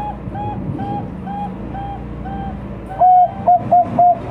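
Zebra dove (perkutut, Bangkok strain) singing. A run of short cooing notes slows and fades, then about three seconds in a much louder coo comes, followed by three quick notes and the start of a long held note.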